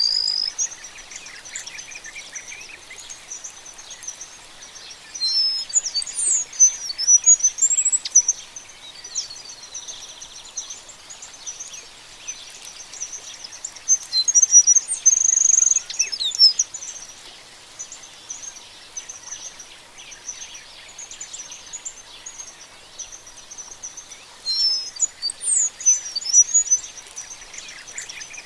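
Oriole finch singing: three bursts of quick, high twittering notes, each two to three seconds long and spaced about nine seconds apart, over a steady high chirring background.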